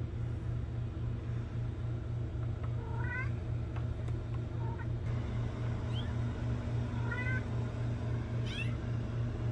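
Young kittens mewing: several short, high-pitched mews a second or two apart, over a steady low hum.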